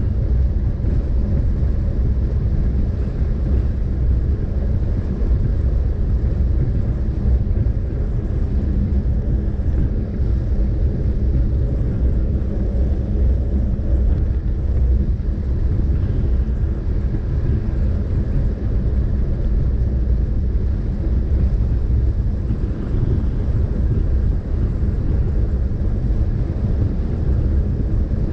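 Steady low rumble with a faint hum above it.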